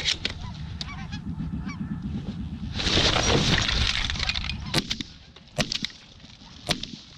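Goose honks, then a loud rustling rush as the hunter sits up out of the layout blind, followed by three shotgun shots spaced about a second apart, fired at three incoming geese.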